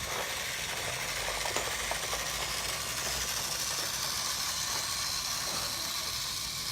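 Toy train running: a steady hiss with faint, scattered light clicks.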